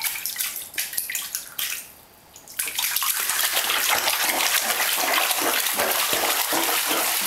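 Baby slapping the bathwater with both hands in a plastic baby tub. Separate splashes at first, a short lull about two seconds in, then fast, continuous splashing from about three seconds in.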